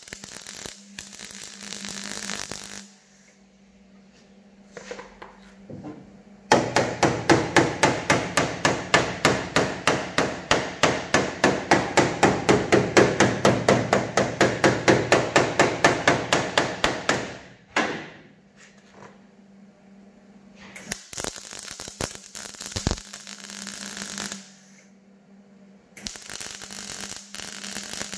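Rapid, evenly spaced hammering on the car's sheet-metal body, about four or five blows a second, starting several seconds in and running for roughly ten seconds. Before it, and again in the last third, come short runs of arc-welding crackle.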